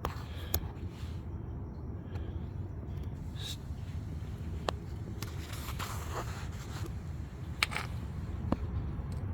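Handling noise on a phone microphone: a steady low rumble with scattered clicks and light scrapes as the phone is moved around.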